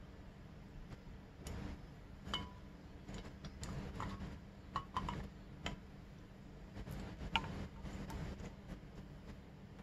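Scattered light metallic clicks and clinks from a Keihin FCR carburetor being handled and turned over, a few ringing briefly, the sharpest about two, five and seven seconds in.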